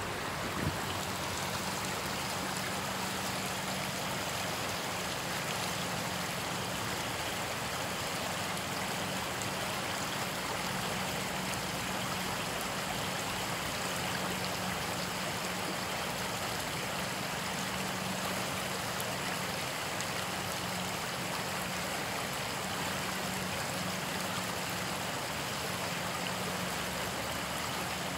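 Weir water rushing and churning in a steady, even roar, with a faint steady low hum underneath.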